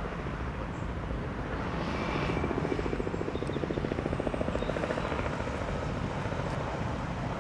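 Robinson R44 Raven helicopter running, its two-bladed main rotor chopping with a fast, even beat that grows louder about two seconds in and eases off again toward the end.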